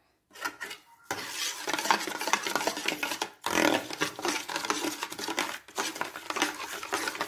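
Metal spoon stirring carrot juice in a steel bowl, scraping and clinking against the bowl's sides. It starts about a second in and goes on with two brief pauses.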